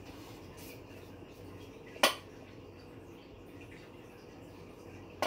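Two sharp clinks of tableware being handled, a loud one about two seconds in and a smaller one near the end, over quiet room tone.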